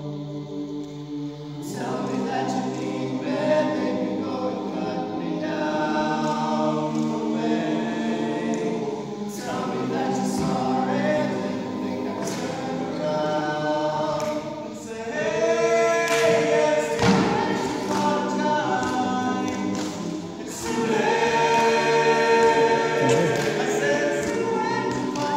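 Men's a cappella choir singing in harmony, with the full group coming in strongly about two seconds in. A few sharp knocks cut through the singing.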